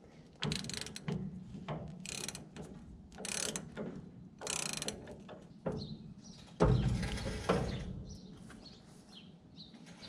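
Socket ratchet wrench clicking in several short runs as a bolt on the hay mower is worked loose. About six and a half seconds in comes a louder, heavy metallic clunk.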